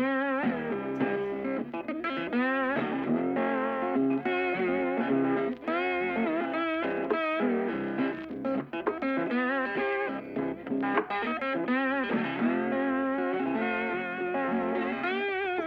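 Background music: electric guitar with effects, playing bending, wavering lead notes over a sustained accompaniment.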